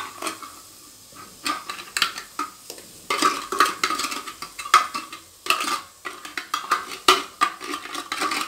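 A small spoon scraping and clinking inside an opened sardine tin, emptying the fish into a cooking pot, in an irregular run of short scrapes and knocks.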